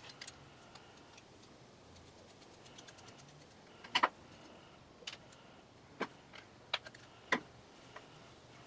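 Screwdriver and small metal carburetor parts handled on a workbench: scattered light clicks and taps, the loudest about four seconds in, with several more over the next few seconds.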